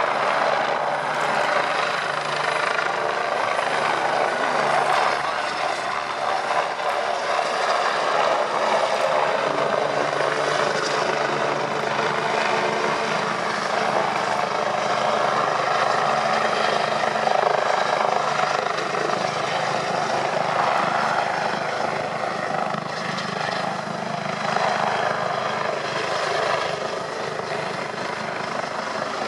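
Eurocopter EC145 twin-turbine helicopter flying overhead: a steady rotor and turbine noise that holds at a constant level.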